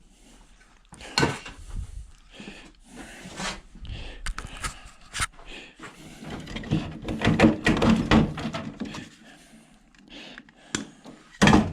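Irregular knocks, clicks and clatter of a hot beverage dispenser's metal panels and parts being handled and pried at during dismantling, with a sharp knock about a second in and a louder one near the end.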